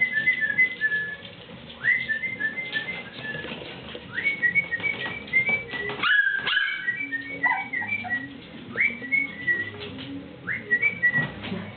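Four-week-old puppies making high, whistling whimpers. Each call opens with a quick upward squeal and breaks into a run of short stepped notes, repeating every couple of seconds, with a lower whine in the middle.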